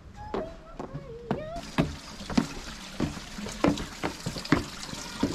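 Footsteps on stone steps and pebble paving, a step about every half second. From about a second and a half in, water splashes steadily from a stone wall fountain.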